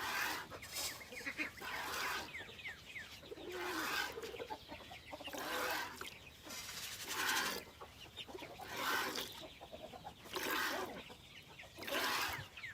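Goat being milked by hand: streams of milk squirt into a bucket in short hissing spurts, one about every second and a half.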